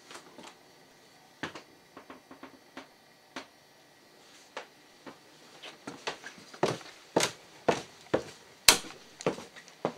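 Footsteps and knocks on bare wooden floorboards: sparse and light at first, then heavier and closer together in the second half, with one sharp knock about three-quarters of the way through.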